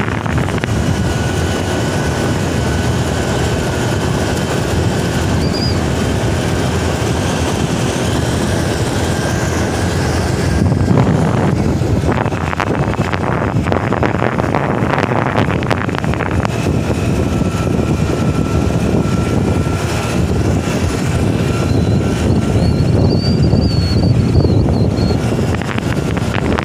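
A vehicle travelling at steady speed: engine and road noise with wind buffeting the microphone, gusting stronger around the middle and again near the end.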